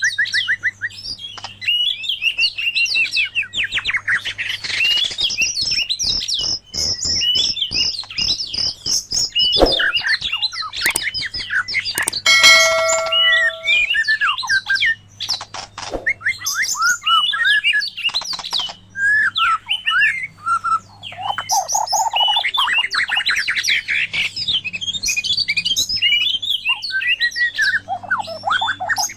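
White-rumped shama and oriental magpie-robin singing: rapid, varied songs of whistles, trills and chattering notes, with a run of sharp clicks in the first third and a short note with many overtones about twelve seconds in. A faint steady low hum lies underneath.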